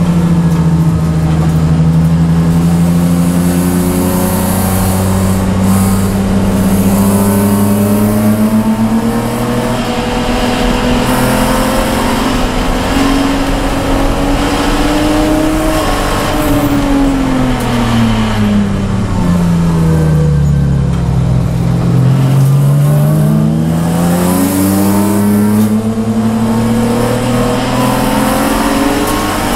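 Race car engine heard from inside the cabin, pulling in third gear with its pitch climbing slowly. Past the middle the revs fall away for several seconds, then rise again as it accelerates.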